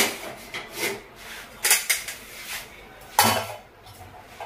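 Steel kitchen utensils and ceramic cups clattering as they are handled and set down. There is a sharp clank at the start, another about a second and a half in, and the loudest a little after three seconds, with softer knocks in between.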